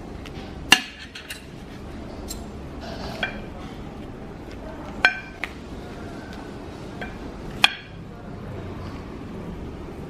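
Cutlery clinking against plates at the table: about five sharp, ringing clinks a few seconds apart, over steady low background noise.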